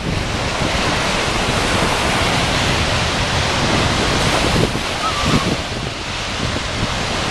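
Small surf on Lake Michigan breaking and washing up onto a sandy shore in a steady wash, with wind rumbling on the microphone.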